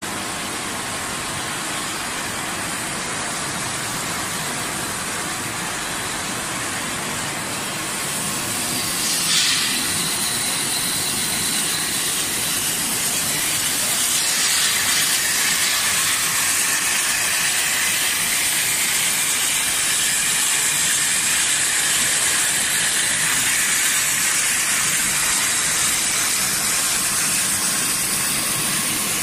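Bottling line and sleeve-labeling machinery running: a steady, hiss-like factory noise with no clear rhythm, a little louder from about eight seconds in.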